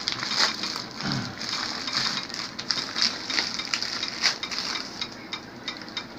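White courier wrapping being torn open and crumpled by hand: a dense, continuous crinkling crackle of many small snaps, easing off near the end.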